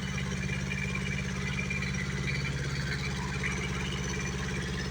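An engine idling steadily: a low, even hum that does not rise or fall.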